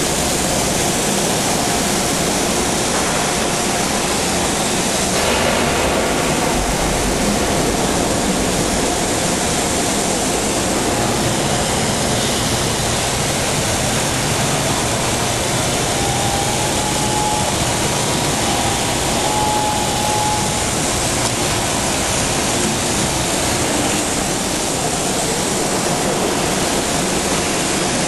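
Steady, even hiss of a welding arc from the torch on an automatic welding carriage laying a bead.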